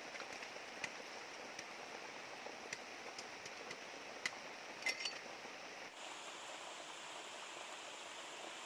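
Shallow river water flowing steadily over rocks, with a few scattered small clicks and taps from hands working close by; the sharpest taps come about five seconds in.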